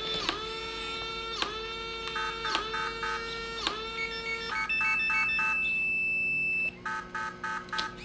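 Smart deadbolt locks jamming as the bolt fails to throw completely: motors whir in short strokes about once a second, with rhythmic electronic beeping as jam alerts. About halfway through a single long beep holds for two seconds, then quick beeping resumes.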